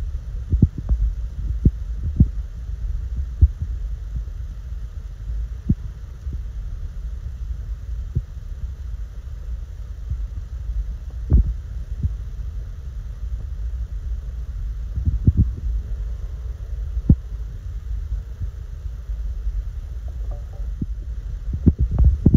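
Handling noise from a phone in a waterproof case: a steady low rumble with irregular soft clicks and creaks of the case.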